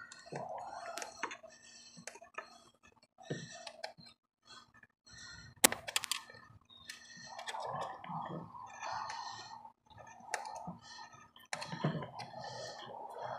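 Hand tool tightening a hose clamp on a diesel fuel line: scattered clicks and scraping of metal on metal, with a few sharp louder clicks about six seconds in and near the end.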